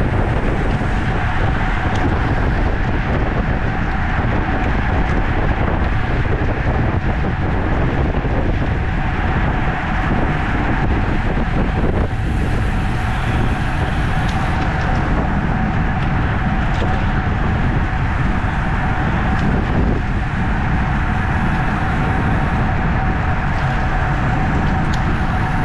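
Steady wind rush and road noise from a racing bicycle riding at speed in a criterium, with a thin steady hum running throughout.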